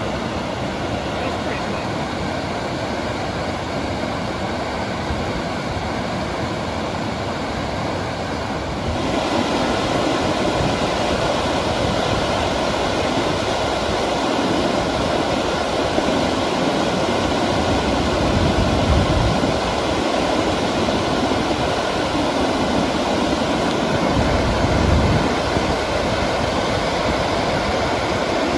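Waterfall: a steady rush of falling water that gets louder about nine seconds in.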